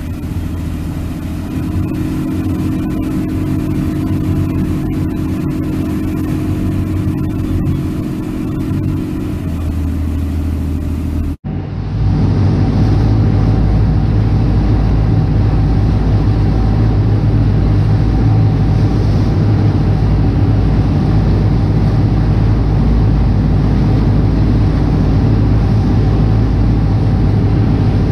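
Lobster boat engine running steadily. About eleven seconds in the sound cuts to a louder engine drone with rushing water, heard from aboard a boat underway.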